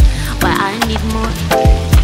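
Background music with a kick drum and bassline under a melodic line.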